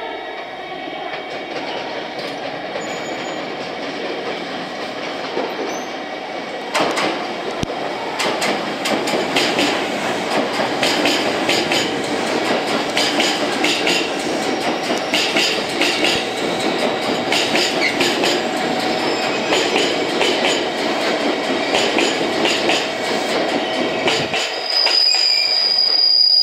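Electric commuter train running into a station. Its wheels clatter and click over rail joints and points in a rapid, irregular rhythm, and near the end a steady high squeal comes in as the train slows.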